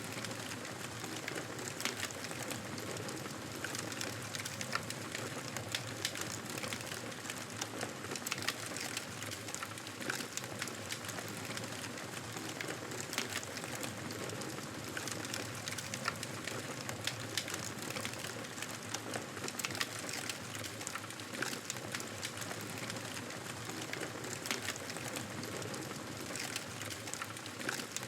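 Wood fire burning in a fireplace: a steady hiss and rustle of flames with frequent sharp crackles and pops throughout.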